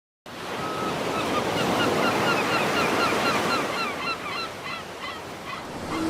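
Sea waves washing onto the shore, with a bird giving a fast run of short, repeated calls, several a second, over the surf; the calls thin out and stop near the end.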